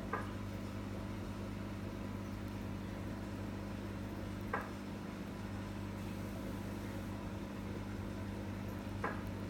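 Steady low mechanical hum, with three faint brief ticks evenly spaced about four and a half seconds apart.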